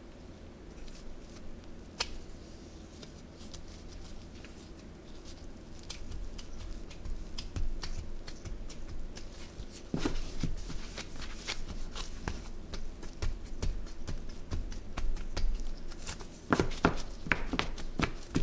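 Gloved hands stacking and pressing crumbly scone dough on a countertop. After a quiet start with one tap about 2 seconds in, the handling comes in as a string of soft pats, crinkles of the plastic gloves and light taps, busiest around the middle and again near the end.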